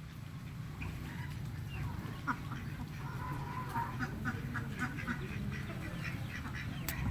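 A flock of ducks quacking, with many short calls coming one after another. A steady low rumble runs underneath.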